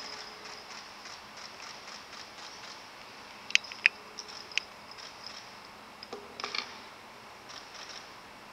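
A faint steady hiss of a quiet room, broken by a few sharp clicks: two close together about three and a half seconds in, another a second later, and a small cluster of lighter clicks and knocks around six and a half seconds.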